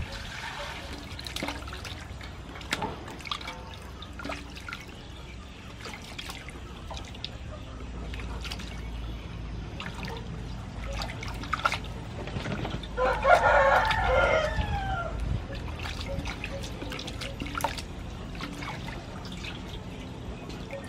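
Water pouring into an aluminium basin at the start, then splashing and dripping as pork ribs are washed in it by hand. A rooster crows once, loudly, for about two seconds a little past the middle.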